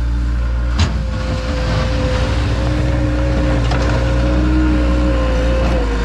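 Gehl 4625 skid steer loader running steadily as it works snow with its bucket, with a steady whine over the engine and a single sharp clank a little under a second in.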